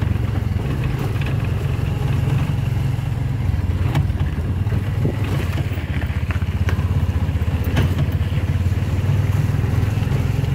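A motorcycle engine running steadily as it rides along, a constant low drone with a few faint clicks over it.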